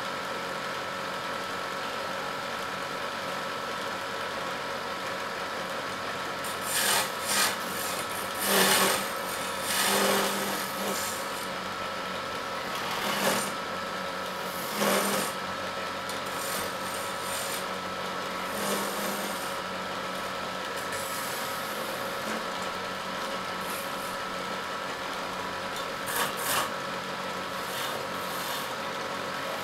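Hand-held turning chisel cutting a wooden spindle on a wood lathe: repeated bursts of scraping as shavings tear off the spinning wood, busiest in the first half and again briefly near the end, over the lathe's steady hum.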